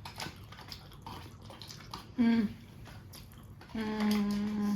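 Close-up eating sounds: small wet clicks and smacks of chewing and sipping. A short hum about two seconds in and a longer, steady, closed-mouth hum near the end.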